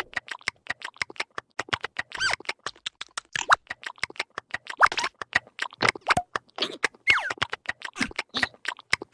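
Rapid cartoon jabbering from an animated larva character: a fast string of clicks and short squeaky chirps, several a second.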